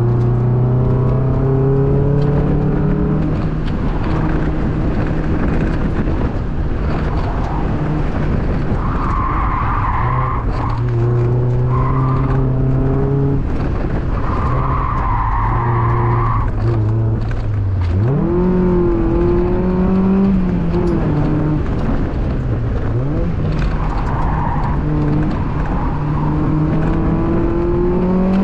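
2002 Mazda Miata's 1.8-litre four-cylinder engine running hard, its revs rising and falling, with several short bursts of tire squeal. The revs drop sharply and climb back about two-thirds of the way in.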